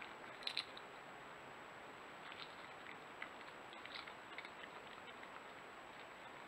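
European badgers foraging with their snouts to the ground, making scattered small crunching clicks, with a sharper pair about half a second in. Under them runs the trail camera's steady hiss and a faint high whine.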